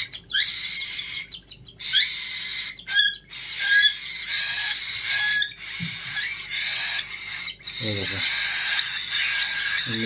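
Cockatiel chick giving its food-begging call while being syringe-fed hand-feeding formula: a continuous high, raspy chatter broken by quick chirps.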